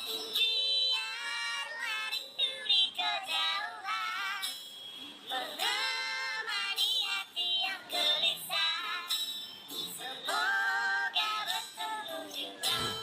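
A song with high-pitched, wavering singing voices over a jingling accompaniment, phrase after phrase with short gaps.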